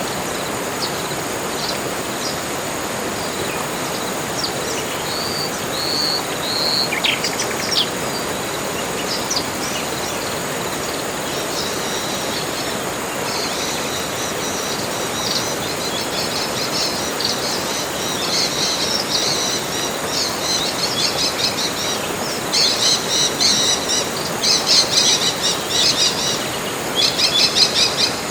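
Tropical forest ambience: several birds chirping and singing in high, fast trills over a steady background hiss, the calls sparse at first and growing busier through the second half.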